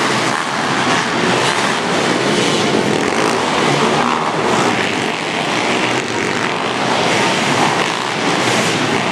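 Several pit bike engines racing together on a dirt track, a loud, dense and steady din.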